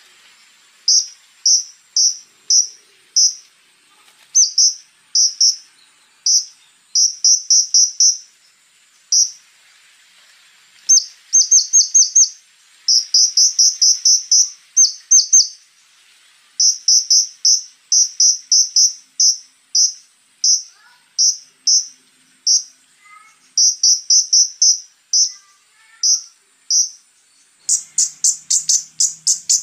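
Scarlet-backed flowerpecker calling: sharp, high ticking notes, some single and some in rapid runs of four to six, with short gaps between. A faint steady high whine runs underneath.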